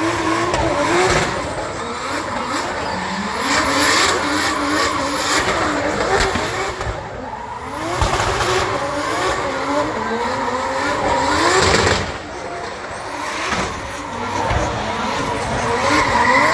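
Drift cars' engines revving hard, their pitch repeatedly climbing and dropping, with tyres screeching as the cars slide sideways in continuous drifts.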